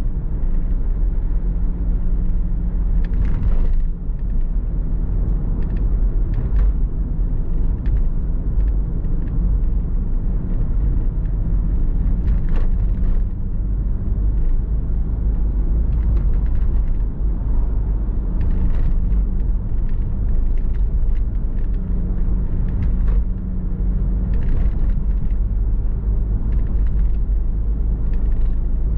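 A car being driven: a steady low rumble of engine and tyre noise, with a faint engine hum that comes and goes and scattered brief clicks and rattles.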